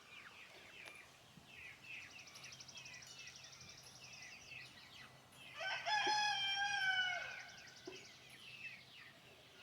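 A rooster crows once, a call of about a second and a half starting a little past halfway through, with faint high chirping of birds before it.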